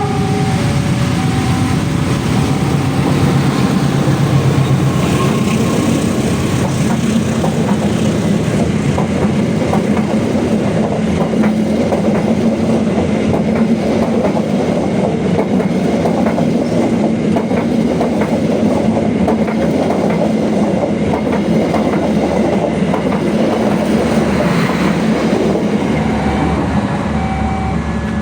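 KA Lodaya passenger train passing close by in heavy rain, its coaches' wheels clattering steadily over the rail joints in a continuous loud rush. Short repeating electronic tones start near the end.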